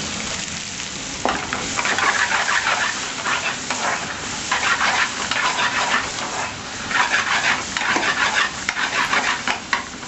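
Chopped garlic frying in oil in a metal pan over a high gas flame, sizzling steadily as it browns. A metal spoon stirs and scrapes it around the pan, giving louder bursts of sizzle about three times.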